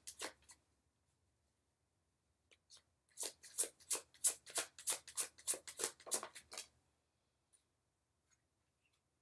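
A deck of reading cards shuffled by hand: a quick run of card taps and flicks, about four a second, starting about three seconds in and lasting about three and a half seconds, with a few faint ticks afterwards.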